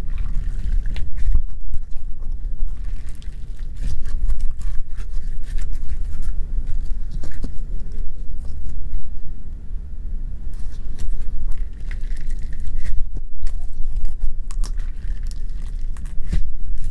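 Homemade no-glue, no-borax slime being stretched, squeezed and kneaded by hand, giving a dense run of small sticky clicks and pops over a low rumble.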